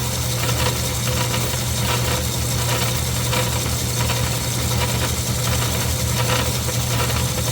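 Craftsman 109 metal lathe running with a steady motor hum, and a fainter scraping that pulses about twice a second.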